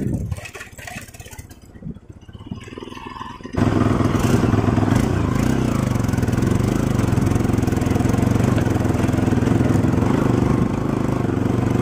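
Motorcycle engine running while riding over rough ground, uneven and fairly quiet at first, then suddenly louder and steady from about three and a half seconds in.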